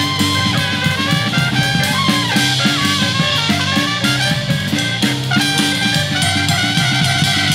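Live jazz band playing: a trumpet plays a moving melody over drum kit with cymbals and a repeating low bass line.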